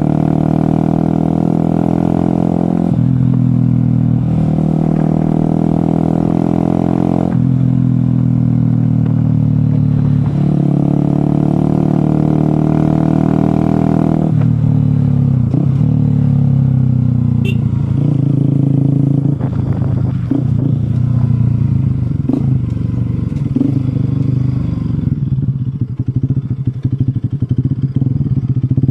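Motorcycle engine running while riding, its pitch stepping several times in the first half like gear changes, then falling as it slows and running more unevenly toward the end.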